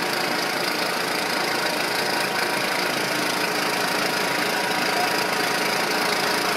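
A vehicle engine running steadily under a constant hiss.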